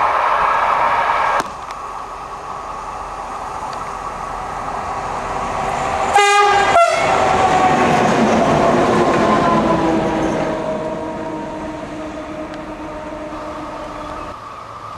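A freight train hauled by a Fret SNCF locomotive passing at speed: the rumble of its approach builds, the horn gives a short blast about six seconds in as it goes by, and a whine falls in pitch as the train draws away. A different loud rail noise is cut off abruptly just over a second in.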